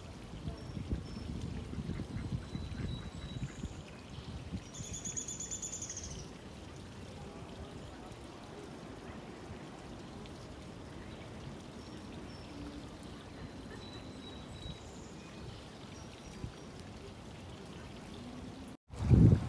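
Creek water flowing steadily, with mallard ducks quacking now and then and a short high-pitched call about five seconds in. Near the end the sound drops out for a moment and a loud low thump follows.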